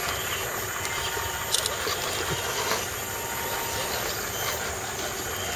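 Scale RC crawler trucks' small electric motors and gear trains whining as they crawl over roots and dirt, with a few short clicks and knocks from the chassis and tyres.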